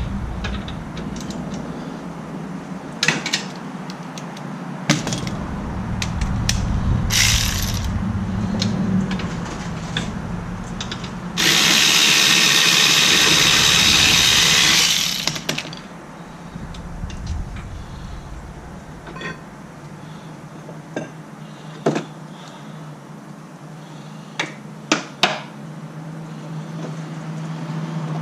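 A power tool runs for about four seconds near the middle, loosening the 14 mm bolts that hold the rear wheel hub bearing. Sharp clicks and knocks of hand tools on metal come before and after it.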